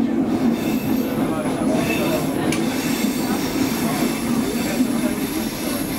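Stockholm Metro C6 subway car running at speed, heard from inside the car: a steady rumble and rattle of wheels on track. From about a second in there is a faint high wheel squeal, with one sharp click near the middle.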